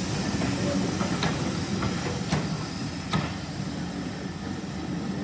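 Steam-hauled heritage passenger coaches rolling slowly past on the rails: a steady low rumble with a hiss of steam escaping from beneath the coaches. About three brief, sharp metallic sounds come from the running gear along the way.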